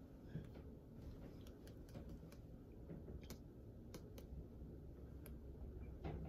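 Quiet room tone with a low hum and about ten faint, light clicks scattered through it.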